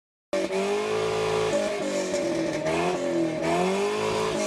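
Car engine revving, cutting in suddenly, its pitch climbing and dropping several times.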